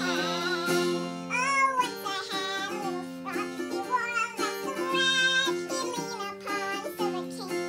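Acoustic guitar strummed in chords, with a young girl singing along in a high voice.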